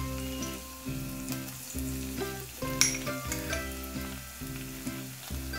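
Chopped ginger and garlic sizzling in hot refined soybean oil in a wok, with small crackles and one sharper pop about three seconds in, under background music.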